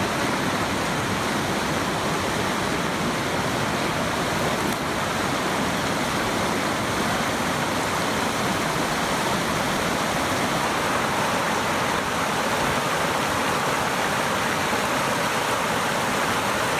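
Fast mountain creek rushing over rocks: a steady, unbroken rush of white water.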